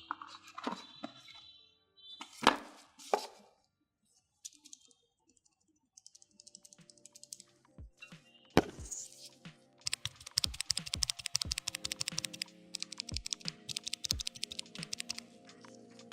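Several separate sharp clacks, then from about ten seconds in a fast, continuous run of typing on a mechanical keyboard, over background music.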